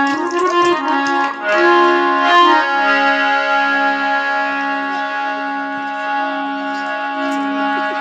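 Harmonium playing an instrumental passage of a folk devotional tune, with long held reedy notes that shift to new pitches every second or two. There is no singing over it.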